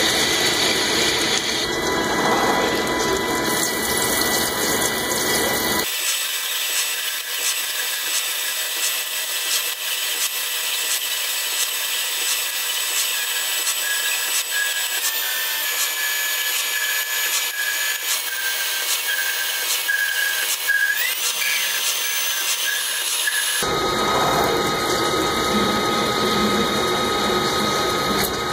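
Lathe cutting threads on a steel shaft under flood coolant, a steady machine run with a high whine. For most of the middle the low rumble drops away, leaving only the thin high whine.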